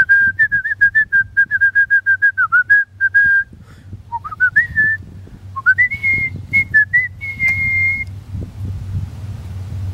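A person whistling a tune: a quick run of short, even notes, then two upward slides into longer held notes, stopping about eight seconds in.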